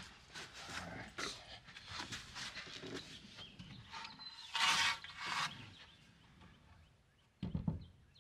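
Someone moving around inside a pickup truck's camper shell and handling a wooden board: shuffling and scattered light knocks and scrapes, a louder rustling scrape about halfway through, and a dull thump near the end.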